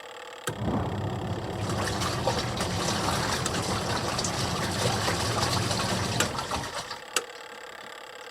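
Washing machine in a wash cycle: a click, then the motor hums as the drum turns with water sloshing inside for about six and a half seconds, stopping with another click. This is the stop-start pattern of a drum turning in bursts.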